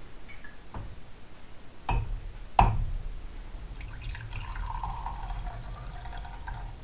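Three sharp glass knocks, the loudest about two and a half seconds in. Then, from about four seconds in, pink RV plumbing antifreeze is poured in a steady stream from a glass measuring cup into a small glass measuring cup.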